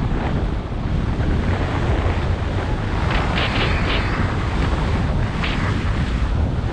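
Heavy wind buffeting the microphone of a camera moving fast downhill on skis. A few brief hissing scrapes of the skis on the snow come through, the clearest about three to four seconds in.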